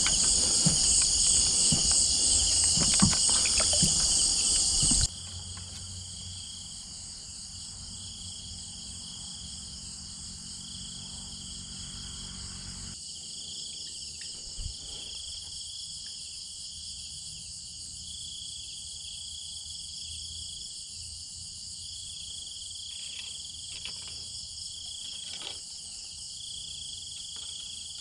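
Night chorus of crickets and other insects, a steady high trilling in several pitches at once. For about the first five seconds louder rustling and handling knocks sit over it, then stop abruptly.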